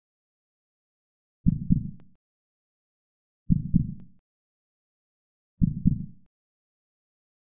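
Heartbeat sound effect: three slow lub-dub beats of two low thumps each, about two seconds apart, with silence between them.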